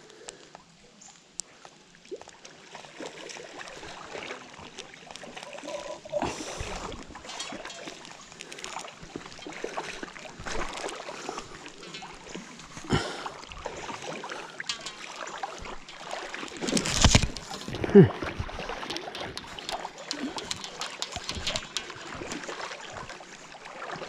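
Shallow river water splashing and sloshing around a wading angler fighting a hooked fish, with scattered small clicks and knocks, and a louder commotion about two-thirds of the way through.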